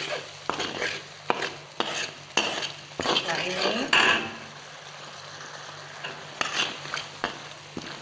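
Metal spatula scraping and knocking against the pan as a thick shrimp curry sauce is stirred, in irregular strokes about once or twice a second and quieter through the middle, over a faint sizzle of the sauce cooking.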